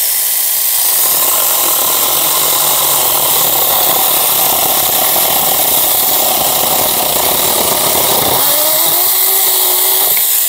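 Saker mini battery-powered electric chainsaw cutting across an old wooden board. The motor's whine drops in pitch about a second in as the chain bites into the wood and runs steadily under load, then climbs back up near the end as the load eases.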